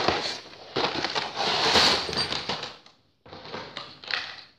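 Cardboard drone box being pulled open, with its packaging rustling and scraping in loud noisy bursts and scattered clicks. The sound breaks off briefly about three seconds in, then comes back in shorter bursts.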